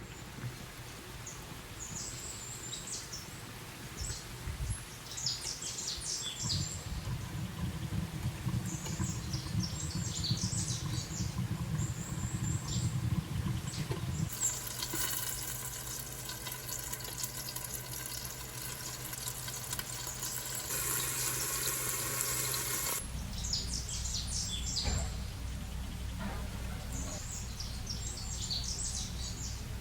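Small birds chirping in short, high, repeated bursts. A steady hiss joins in about halfway through and stops suddenly about eight seconds later.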